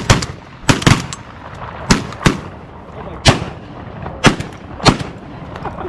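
A volley of about nine shotgun shots from several hunters firing at Canada geese. The shots come irregularly, some in quick pairs, spread over about five seconds.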